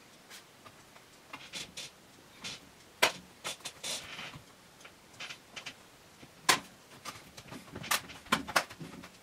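Aluminium bottom case of an A1707 Touch Bar MacBook Pro being handled and pressed down into place on a wooden table: scattered clicks and taps, the sharpest about three seconds in and again about six and a half seconds in.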